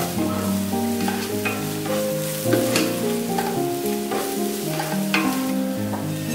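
Chopped onion, green chilli and ginger sizzling in hot oil in a nonstick pot, stirred with a spatula that knocks and scrapes the pan a few times. Soft piano music plays over it.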